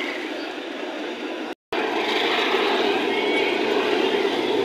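Jalebi batter frying in a karahi of hot oil: a steady, dense sizzle, cutting out for a moment about one and a half seconds in.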